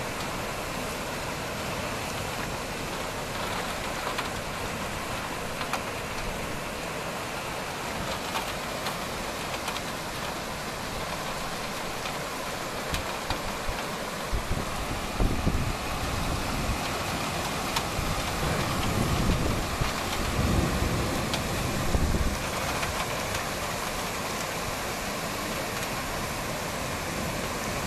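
Heavy rain pouring steadily, with uneven bursts of low rumble through the middle stretch.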